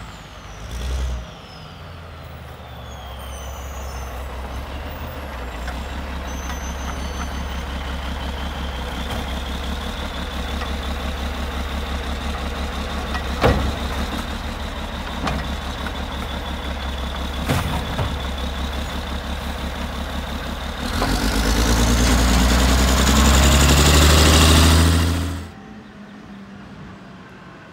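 Condor automated side-load garbage truck with a McNeilus Autoreach arm, running steadily with a high hydraulic whine as the arm lifts and dumps a cart. Two sharp knocks come about halfway through. About three-quarters of the way in the engine revs louder for a few seconds, then the sound cuts off abruptly.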